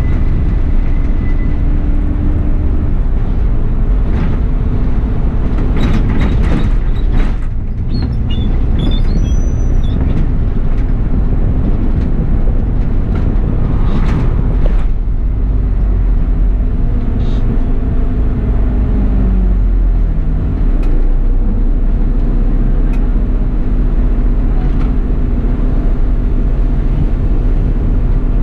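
Bus running, heard from the driver's cab: a steady low rumble of engine and road noise. Short knocks and rattles come about four to seven seconds in and again around fourteen seconds.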